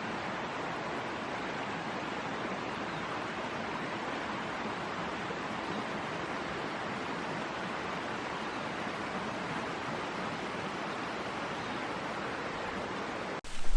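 Mountain stream rushing steadily, cutting off abruptly near the end.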